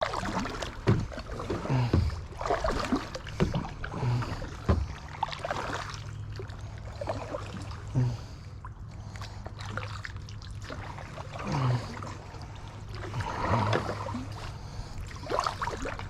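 Kayak paddle dipping and splashing in the water, an uneven stroke every second or two, over a steady low hum.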